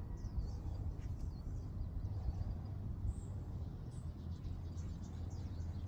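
Outdoor ambience: faint, repeated bird chirps over a steady low rumble.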